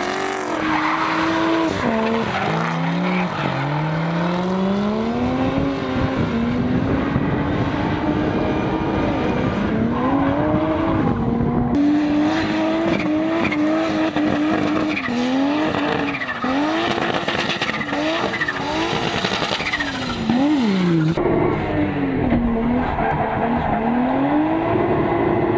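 Drift cars sliding on tarmac: the engines rev hard and drop back again and again as the throttle is worked, with tyre squeal. The sound changes abruptly about halfway and again near the end, where the last few seconds are heard from inside a drifting car's cabin.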